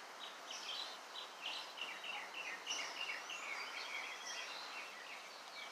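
Small birds chirping, a quick run of short high calls, many of them falling in pitch, over a faint steady background hiss.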